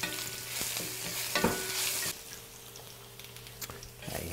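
Garlic sizzling in hot oil in an electric frying pan, stirred with a spatula, with a knock of the spatula against the pan about a second and a half in. The sizzle falls away about two seconds in, leaving a faint steady low hum.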